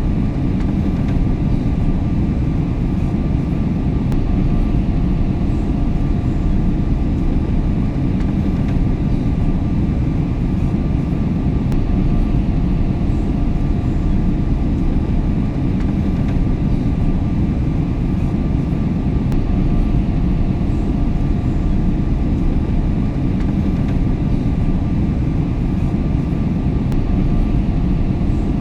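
Airplane cabin noise in flight: a steady low rumble of engines and airflow with no change, and two faint steady hums above it.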